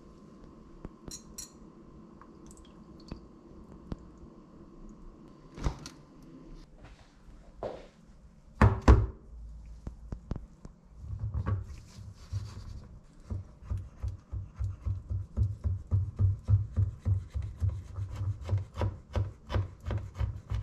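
A round metal cake pan full of liquid jelly being jiggled and knocked against the countertop: a fast, regular run of dull low knocks, about three or four a second, through the second half. A couple of louder single thuds come a few seconds before it.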